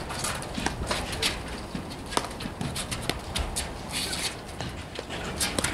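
Platform tennis rally: paddles popping the ball, with a run of quick knocks and scuffs from players' footsteps on the court deck.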